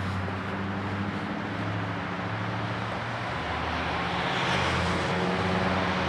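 Road traffic: a motor vehicle's engine hums steadily under a rush of tyre and road noise that swells about four seconds in, as a car passes.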